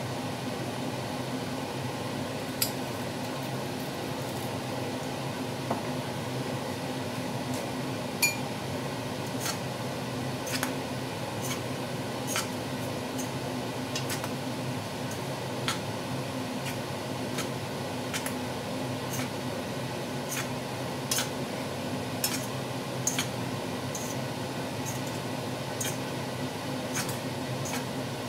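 Utensil clinking and scraping against a frying pan as bihon rice noodles are tossed and stirred, in sharp clicks at irregular intervals. A steady low hum runs underneath.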